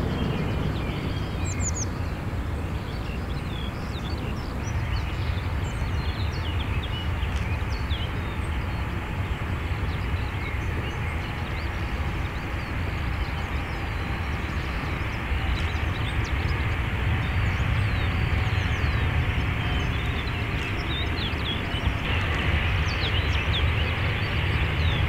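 Airbus A340 airliner's four jet engines running with a steady rumble and hiss as it rolls along the runway, with faint high chirps over it.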